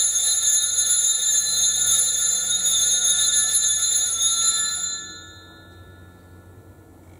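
Altar bells ringing at the elevation of the consecrated host, a steady bright jingling that dies away about five seconds in.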